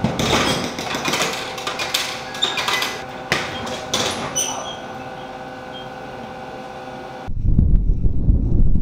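Drink vending machine: buttons clicking and a plastic bottle clunking down into the dispenser, then being pulled out, over the machine's steady hum. About seven seconds in this cuts abruptly to a loud low rumble of wind on the microphone outdoors.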